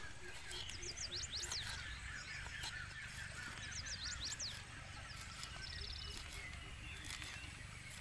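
Forest birds singing: quick high whistled glides twice and a short fast trill, over a run of repeated chirping notes. Now and then a sharp tap of a knife cutting chilies against a small wooden block.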